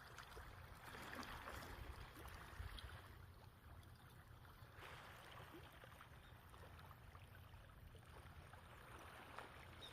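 Faint, gentle seawater washing on the shore of a calm sea, swelling about a second in and again around five seconds, over a low rumble.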